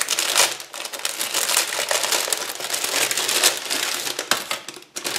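Clear plastic toy packet crinkling and crackling as it is opened by hand and the toy bow and arrows are pulled out.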